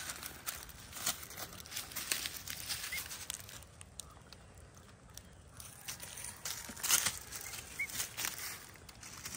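Dry fallen leaves rustling and crackling under a baby emu chick's feet and the handler's hand, in scattered bursts that are loudest about seven seconds in. Two faint, short high chirps are heard.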